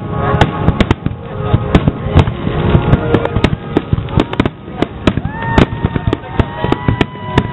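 Fireworks display: aerial shells bursting in rapid succession, many sharp bangs and crackles overlapping without a break.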